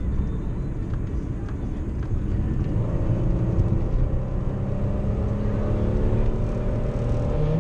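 Car driving, heard from inside the cabin: a steady low rumble of engine and road noise, with a faint steady engine hum that comes in about three seconds in.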